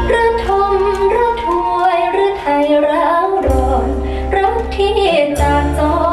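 A recorded Thai song played over hi-fi loudspeakers: a woman singing a slow melody over held keyboard chords and deep, steady bass notes.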